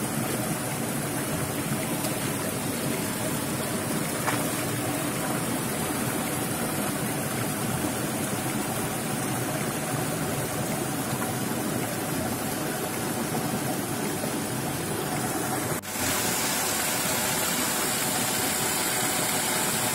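Steady rushing of a rocky mountain stream and its small cascades. After a cut about 16 s in, a small waterfall pouring over boulders is close by, and the sound is louder and hissier.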